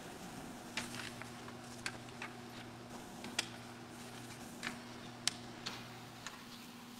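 Quiet room tone with a faint low steady hum and a scattering of small, irregularly spaced clicks and taps, about eight in all.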